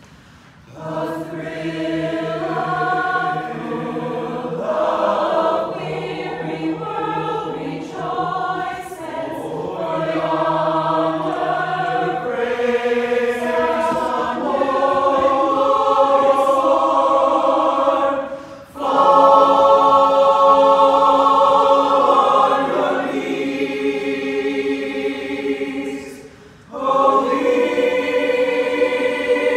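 Mixed choir of men's and women's voices singing in parts without accompaniment, holding long chords in phrases broken by short pauses for breath about two-thirds through and again near the end.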